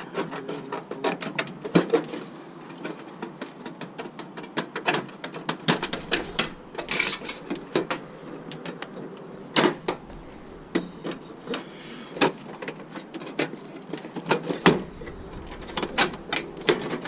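Eavestrough being cut to length with snips: a run of sharp, irregular metal clicks and snaps.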